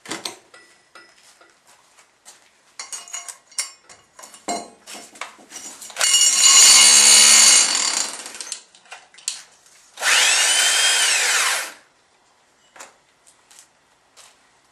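SDS hammer drill running in two bursts, after a few seconds of light clicks and knocks from handling tools and hardware. The first burst is a loud, rough run of about two and a half seconds. The second lasts about two seconds, its pitch rising as the motor spins up and falling as it winds down.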